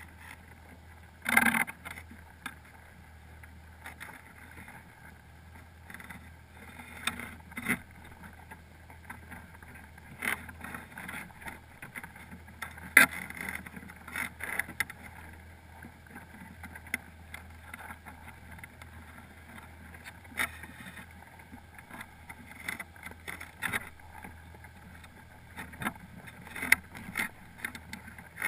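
Crabs clicking and scraping as they clamber over one another and the pot around the camera, heard underwater through a GoPro's waterproof housing: irregular clicks and knocks, two sharper ones about a second and a half in and near the middle, over a steady low hum.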